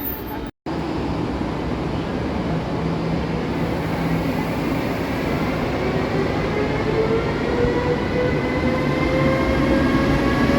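Electric train pulling through a station: a steady rumble of wheels on rail, with a motor whine that slowly rises in pitch as the train accelerates. It cuts out briefly about half a second in.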